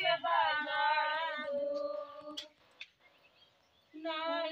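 Women singing a devotional song, drawing out long wavering notes; the singing breaks off about two and a half seconds in and starts again near the end.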